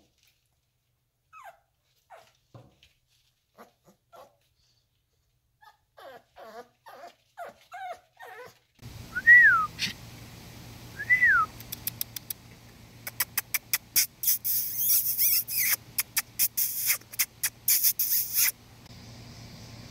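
Young American Bully puppies whimpering: short, faint falling whines that come more and more often, then two louder high whines that rise and fall, about 9 and 11 seconds in. In the second half a rapid run of sharp clicks and hiss sounds along with them.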